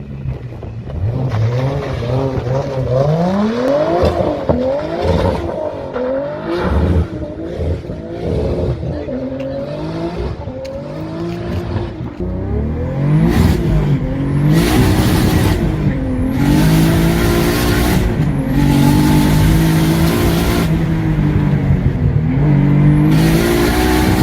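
Turbocharged 2JZ inline-six in a Subaru BRZ revving hard, its pitch climbing and falling repeatedly. From about halfway it is held at high revs on the limiter, with several loud hissing bursts.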